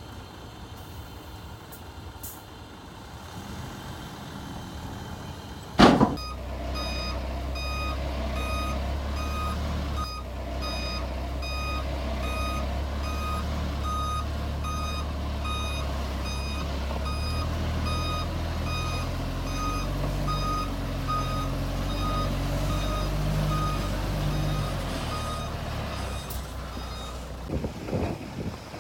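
A loud bang about six seconds in. Then a heavy diesel earthmoving machine runs close, with its reversing alarm beeping steadily. The engine drops away a few seconds before the end, leaving a few clanks.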